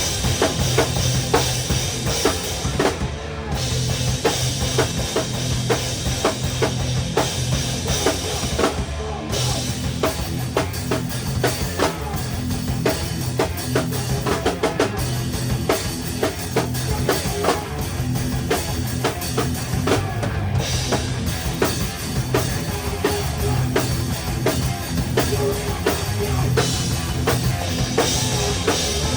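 Live rock band playing at full volume, the drum kit heard close up: kick drum, snare and cymbals driving the song. The cymbals cut out briefly three times.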